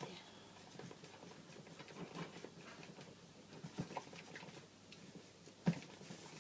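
Rubber spatula beating coffee whipped cream in a bowl, a run of faint, irregular light taps with one sharper knock near the end. The cream is too soft to roll and is being whipped a little stiffer.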